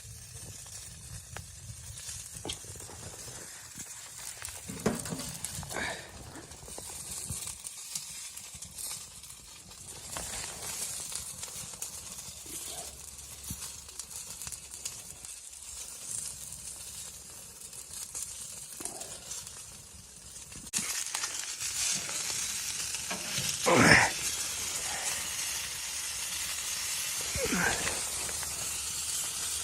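Steady sizzling hiss with scattered light clicks, which gets louder about two-thirds of the way in; a short, louder sound stands out a few seconds later.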